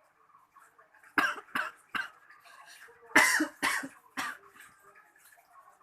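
A person coughing in two fits of about three coughs each, the second fit louder, set off by a hit of 12 mg nicotine e-liquid vapour from a mechanical vape mod.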